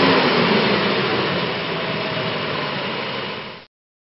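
Holden VL Commodore Turbo's RB30ET turbocharged straight-six, fitted with a new Plazmaman intake and intercooler, idling just after starting, its revs easing down in the first second. The sound slowly fades, then cuts off abruptly near the end.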